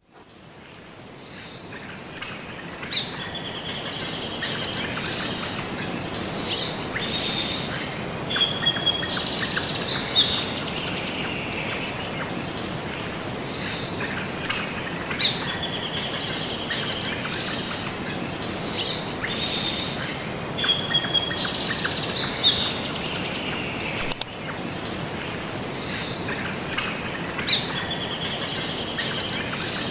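Birds singing and chirping, with short trills and whistled notes over a steady outdoor hiss. It fades in at the start, and the same run of calls comes round again about every eleven or twelve seconds, like a looped recording.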